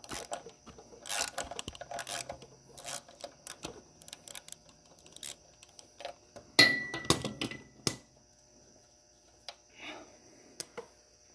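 Hand tools working a tractor oil pan bolt loose: scattered metallic clinks and taps of a socket and extension against the bolt and pan. About six and a half seconds in comes one louder metallic clink that rings briefly.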